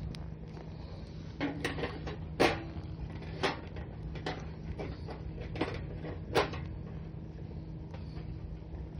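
A series of about seven irregular knocks and clatters, the loudest about two and a half seconds in, over a steady low hum.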